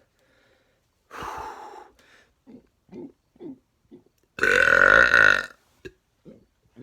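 A man belching: a shorter, quieter burp about a second in, then a long, loud belch of about a second about two-thirds of the way through.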